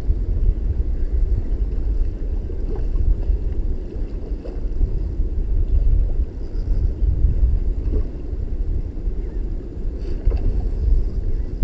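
Wind buffeting the microphone: a continuous low rumble that swells and dips unevenly.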